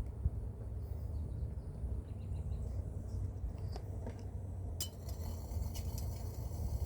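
A few light clinks and taps of coffee-making gear, with one sharper click about five seconds in, over a steady low rumble.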